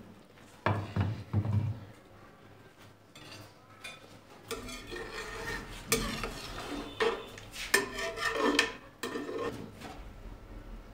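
A cooking spoon stirring and scraping through thick curry in a metal pressure cooker, with irregular clinks of metal on the pot over several seconds. Two heavier knocks come about a second in.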